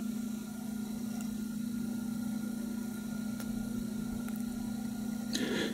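Domestic cat purring steadily close to the microphone, with a brief rustle near the end.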